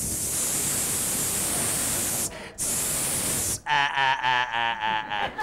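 Steady hiss that breaks off briefly about two seconds in. Near the end it gives way to a pitched, pulsing warble about a second and a half long, then the hiss resumes.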